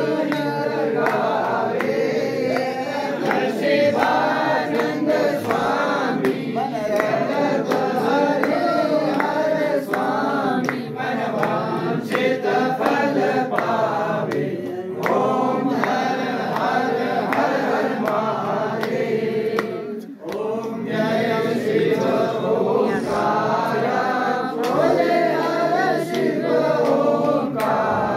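A group of devotees singing a Shiva aarti together, with sharp percussive strikes throughout. The singing dips briefly about twenty seconds in.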